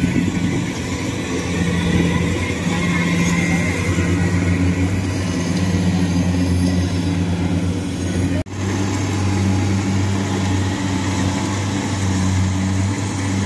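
Kubota rice combine harvesters' diesel engines running steadily under load as the machines crawl slowly through boggy paddy mud. The sound drops out for an instant about eight and a half seconds in.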